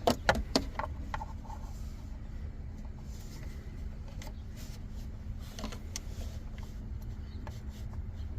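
Handling clicks and taps of pliers on a BMW VANOS solenoid as it is pushed into its bore in the engine: several sharp clicks in quick succession in the first second, then a few isolated ones, over a steady low rumble.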